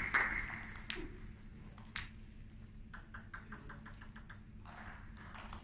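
Table tennis ball clicking: a few sharp single ball taps in the first two seconds, then a quick, even run of light bounces, about six or seven a second, as the ball is bounced before a serve.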